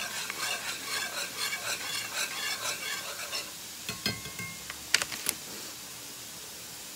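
A metal spatula scraping and stirring squash and onions frying in a cast-iron skillet, in quick rhythmic strokes over a steady sizzle. A few sharp metal clinks come about four and five seconds in, and after that only the sizzle continues.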